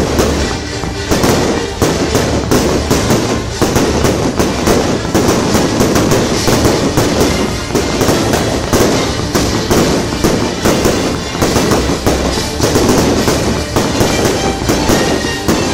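Aerial fireworks display in full barrage: a dense, unbroken run of sharp bangs and crackling from shells bursting overhead, many reports a second.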